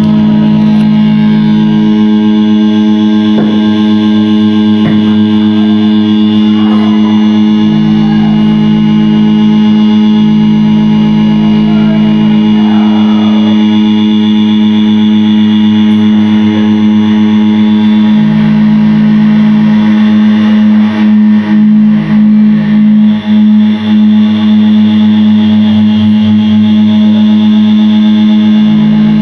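Loud live noise-drone music: a dense, sustained wall of distorted, effects-laden sound over a strong steady low tone. About two-thirds of the way through it stutters in a run of short cut-outs.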